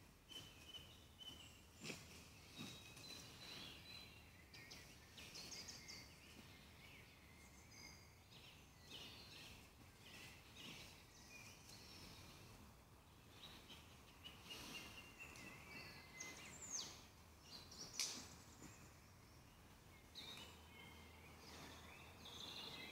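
Faint woodland birdsong: several small birds chirping and trilling on and off, over a soft low background hum. A few sharp clicks or snaps cut in, the loudest about three quarters of the way through.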